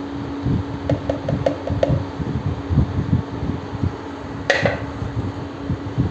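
Steady hum of an induction cooktop's cooling fan under a low, uneven rumble, with a quick run of small ticks about a second in. At about four and a half seconds there is one sharp knock with a short ring as the plastic oil jug is set down.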